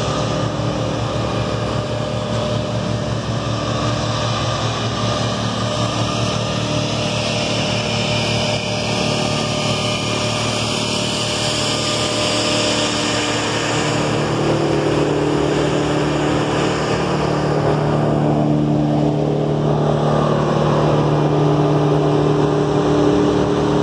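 Diesel engines running steadily: an Avant 640 compact loader's engine, with a Vermeer BC1800 wood chipper's engine growing louder and steadier from about halfway through.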